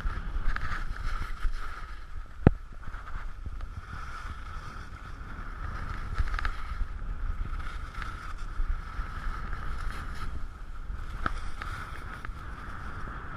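Skis sliding and scraping over groomed snow with wind rumble, muffled by an action camera's waterproof case, rising and falling in uneven surges. A sharp click about two and a half seconds in, and a fainter one near the end.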